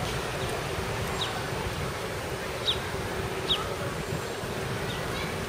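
Outdoor park ambience: a steady rushing background with a faint hum, broken by four short, high chirps that each fall in pitch, two of them louder about halfway through.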